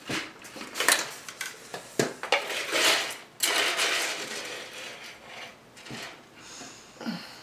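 Dishes and cutlery clattering as they are handled: a string of sharp clicks and knocks, mixed with some scraping or rustling.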